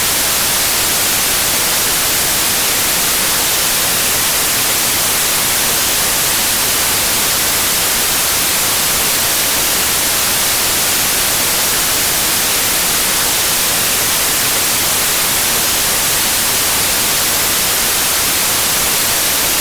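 Analog TV static: a steady, loud hiss of white noise, unchanging throughout, like a television tuned to a channel with no signal.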